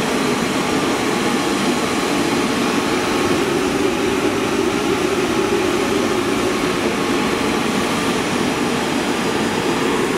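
Steady, even running noise of workshop machinery around an extruder line, with no breaks or changes in pitch.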